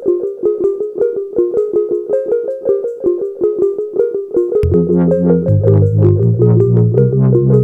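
Upbeat background music: a quick, even run of short plucked notes. Just past halfway, deep bass and synthesizer chords come in and the music grows louder.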